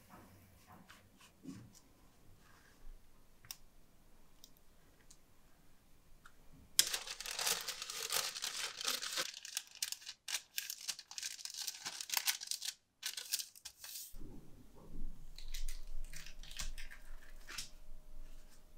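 Packaging being torn open and crinkled: a dense crackling run lasting about seven seconds in the middle, with light clicks and knocks of kitchen handling before and after.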